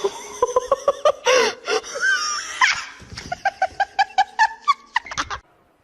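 A person laughing hard in quick, repeated 'ha-ha' pulses that rise and fall in pitch, cut off abruptly near the end.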